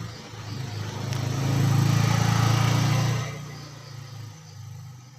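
A vehicle passing by: a low engine hum with road noise that swells to its loudest about two seconds in and fades away after about three seconds.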